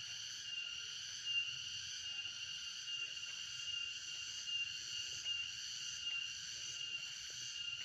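Steady, high-pitched chorus of insects in the trees, with a regularly pulsing note running through it.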